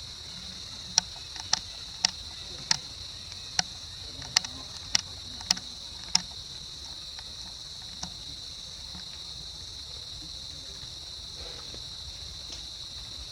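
Steady high-pitched chorus of insects. Over it come about nine sharp clicks or taps, roughly one every half second, in the first six seconds, then one faint click a couple of seconds later.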